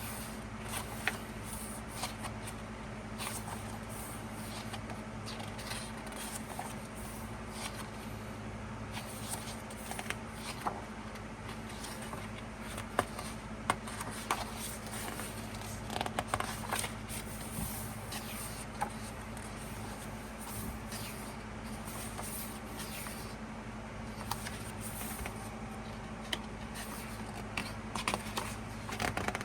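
Pages of an album photo book being turned and handled: scattered paper rustles and light taps over a steady low hum.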